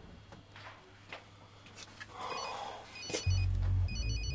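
A mobile phone starts ringing suddenly about three seconds in, loud, a ringtone tune of low steady notes with beeping high tones above them.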